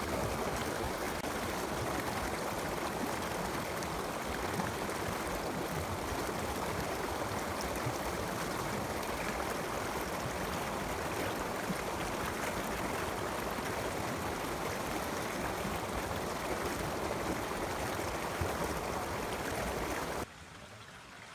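Forest stream running steadily over rocks, an even rush of water. About a second before the end it abruptly drops to a much quieter level.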